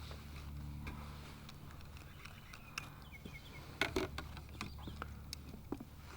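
Scattered light clicks and knocks over a low steady rumble, with a quick cluster of knocks about four seconds in.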